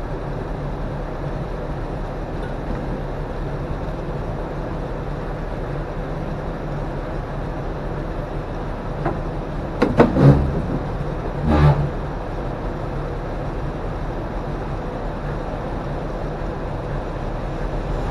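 Steady low running of an idling diesel truck engine, with two loud knocks about ten and eleven and a half seconds in.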